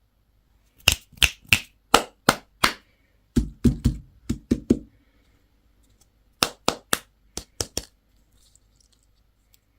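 Sharp taps on a hard object in three quick runs of about six strokes each, roughly three to four a second; the middle run is heavier and more thudding.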